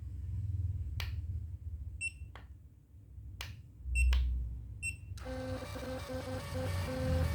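Plastic clicks from handling a small thermal receipt printer while its paper roll is loaded, with three short high beeps from the printer. About five seconds in, a continuous whirring with shifting pitched tones starts.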